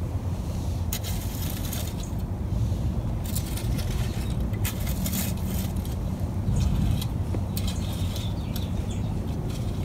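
Garden tools working hard, rocky soil: irregular scrapes and clinks of stones against metal, over a steady low rumble.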